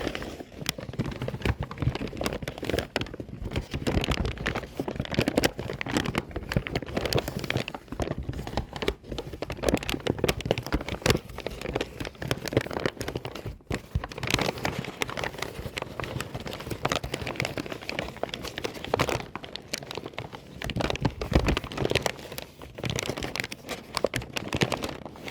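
A paper bag being crumpled and crinkled by hand: a continuous, irregular crackling made of many quick dry crackles, with a few brief pauses.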